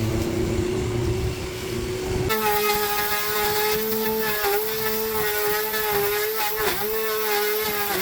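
Lawn mower engine running, then, after a cut about two seconds in, the steady high whine of an electric edge trimmer's motor.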